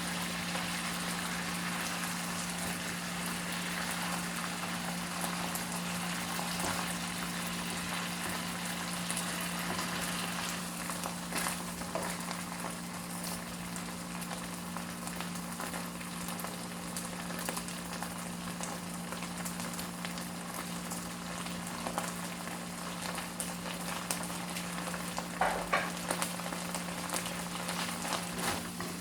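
Food sizzling in a pan on the stove, a steady hiss over a constant low hum. A few light knocks come in, the loudest a little before the end.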